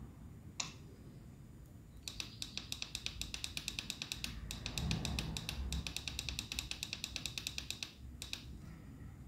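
The SET push-button on a KTM Duke 790's left handlebar switch clicking: one press, then rapid repeated presses of about six or seven a second for roughly six seconds, stepping up the service-interval mileage, then a couple of single clicks near the end.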